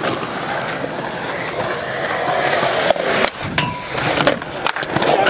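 Skateboard wheels rolling on concrete, then from about three seconds in a series of sharp clacks as a board pops onto a concrete ledge and grinds along it.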